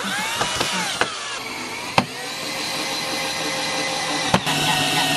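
Cordless drill driving a long wood screw into a board, its motor whine bending up and down in pitch at first as the trigger is worked, then running steadily. Two sharp clicks break in, about two seconds in and near the end.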